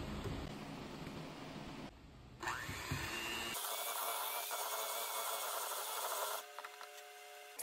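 Electric hand mixer running, its beaters working thick chocolate crinkle cookie dough in a bowl. The sound changes abruptly a few times, from a heavier, lower noise to a higher one with a faint steady whine, then drops quieter near the end.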